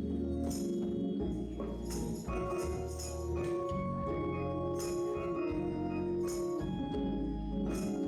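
Church band playing an instrumental, with held keyboard chords over bass notes and regular cymbal and drum hits.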